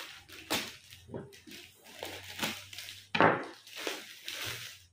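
Plastic courier mailer bag crackling and tearing as it is slit with a knife and pulled open, in short irregular rustles with the loudest crackle about three seconds in.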